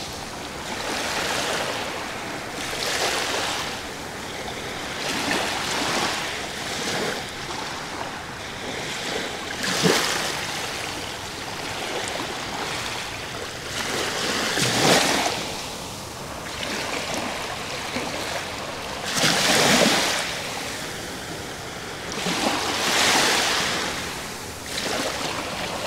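Small sea waves washing onto a shell-strewn sand beach: a rush of surf that swells and ebbs every few seconds, with a few louder breaks.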